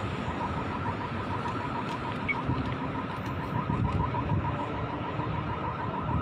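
Pedestrian crossing signal sounding a rapid run of short, high chirps, about five a second, over steady city street noise.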